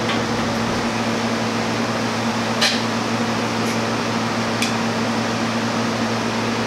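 Brewery chiller running: a steady hum with fan-like noise. Two light clicks come about two and a half and four and a half seconds in.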